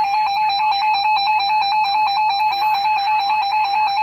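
Emergency alert attention tone: a loud, steady electronic tone trilling rapidly between two close pitches.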